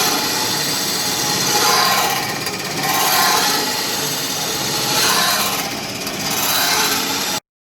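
Horizontal spring end grinder's dry abrasive wheels grinding the ends of steel coil springs: a harsh, continuous grinding noise that swells and fades about every one and a half to two seconds, then cuts off abruptly near the end.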